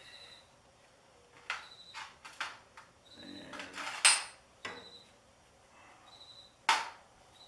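Hammer striking the steel tine bolt and hub on a rear-tine tiller's axle: about seven irregular metal knocks, the loudest about four seconds in, with a short scrape just before it, knocking a rusted tine bolt through.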